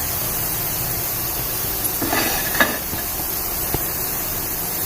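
Soaked chana dal deep-frying in hot oil, a steady sizzle, with the frothing finished: the sign that the dal is fried through. A brief clatter about two seconds in and a sharp click near the end.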